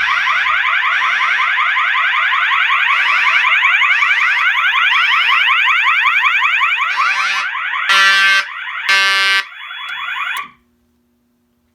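Fire alarm sounding after a magnet test of the smoke detector. A System Sensor MASS sounder plays its warble tone, a rapid rising sweep repeated many times a second, while an Edwards 892-2B horn on the temporal pattern pulses on and off underneath. The alarm cuts off suddenly about ten seconds in, leaving a faint steady tone.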